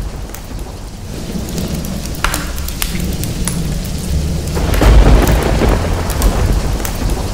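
Thunderstorm: steady rain with a low rumble of thunder that swells to its loudest about five seconds in.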